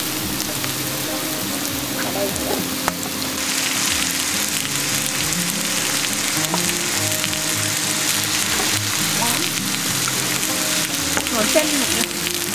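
Slices of pork belly sizzling on a hot round grill pan, a steady frying hiss that grows louder about three and a half seconds in.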